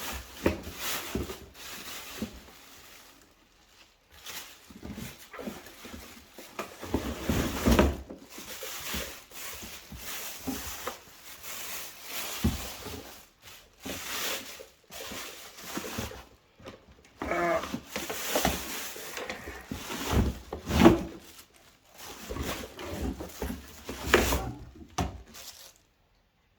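Irregular clatter and rustling of plastic vacuum-cleaner parts and packaging being handled, with a brief pitched sound about two-thirds of the way through.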